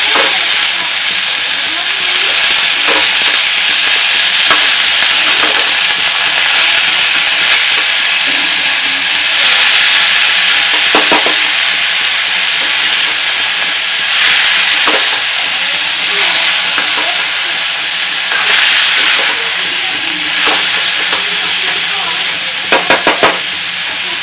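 Shredded cabbage and potatoes sizzling and frying in a kadai on a gas stove, with a steel spatula stirring and scraping the pan now and then. A quick run of sharp clicks near the end.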